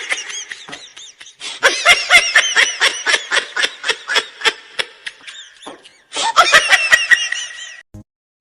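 High-pitched laughter sound effect in quick rhythmic bursts, in three bouts: one fading out in the first second, a long one from about a second and a half in, and a shorter one near the end.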